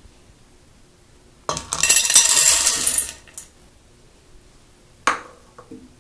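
Corn kernels poured from a measuring cup into an empty stainless steel saucepan, clattering against the metal for about a second and a half. A single sharp knock follows about five seconds in.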